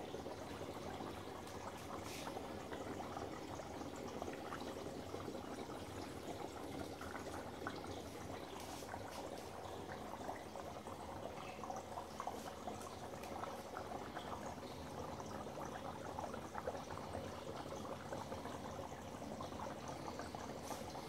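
Dry ice bubbling steadily in hot soapy water in a stainless steel sink, the escaping gas churning the water like a boil and crackling through a growing mound of suds.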